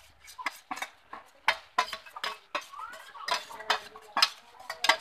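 A flat steel spatula scraping and clinking against a metal pan as a thick onion-tomato masala is stirred over a wood fire, in an uneven run of strokes about two a second.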